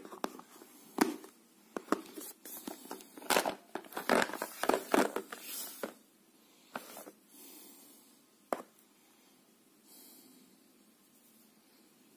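Handling noise from unboxing a smartphone: the phone is lifted out of its cardboard box with a quick run of taps, knocks and rustles, busiest in the first half, then only a few scattered taps.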